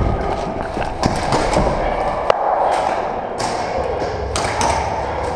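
A few scattered sharp knocks and thuds in a large hall over a steady noisy background, the sharpest about two seconds in.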